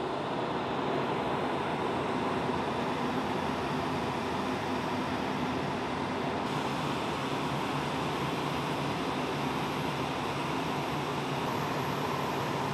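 Boeing C-17 Globemaster III's Pratt & Whitney F117 turbofan engines running on the flight line: a steady, even rush of jet noise, with a faint high whine joining about halfway through.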